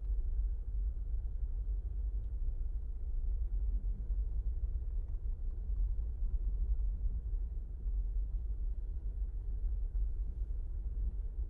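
Steady low rumble of a Jeep driving slowly on a paved road, heard from inside the cabin: engine and tyre noise.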